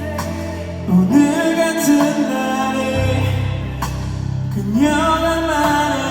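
A male singer performing live over band accompaniment, his held notes sliding up into pitch. The bass line changes note about halfway through.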